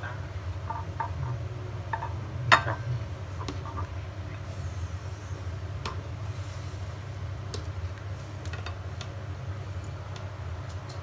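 Ladle and bowls clinking as rice porridge is served from the pot: scattered light knocks, with one sharp clink about two and a half seconds in, over a steady low rumble.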